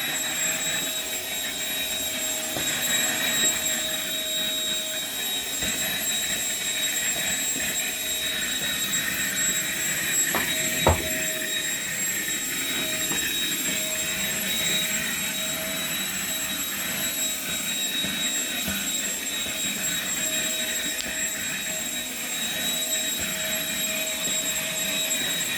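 Vacuum cleaner running steadily with a high whine, sucking up scraps of paper from the floor. A single sharp knock about eleven seconds in.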